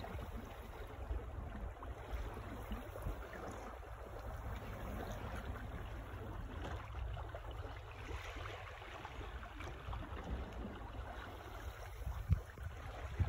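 Water washing along the hull of a Shipman 28 sailboat under way in light wind, with a low wind rumble on the microphone. A few louder wind buffets come near the end.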